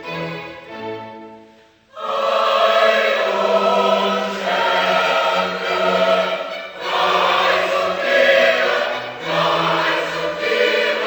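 Classical music: a bowed-string passage dies away, then about two seconds in a choir and orchestra come in loudly together, singing in phrases a few seconds long.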